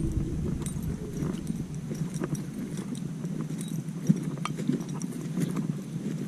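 Footsteps walking, heard as a series of irregular light knocks and clicks.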